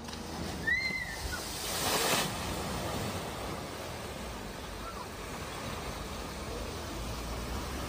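Floodwater rushing and splashing around a car driving through a deeply flooded road. It is a steady rush of water, with a louder surge of splashing about two seconds in.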